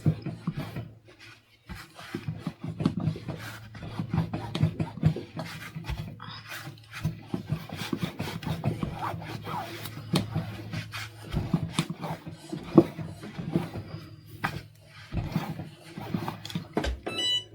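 Fabric and cotton batting rustling and rubbing as they are handled, with scattered light clicks and taps.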